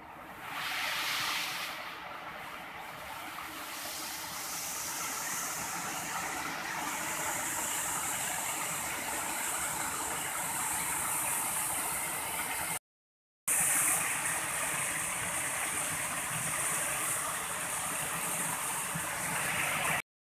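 Waterfall: steady rushing of falling water, broken by a short silence about two-thirds of the way through.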